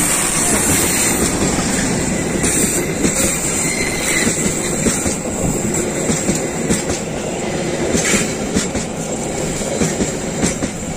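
A diesel-hauled passenger train passes close by. The locomotive goes past at the start, then the passenger coaches roll by with a steady, loud rumble and wheels clacking over the rail joints.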